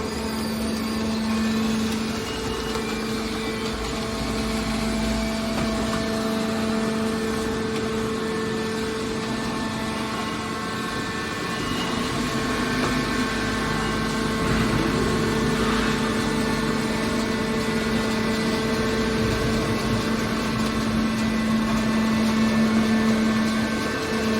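Hydraulic scrap metal baler running: a steady mechanical hum from its motor and pump, with a constant pitch.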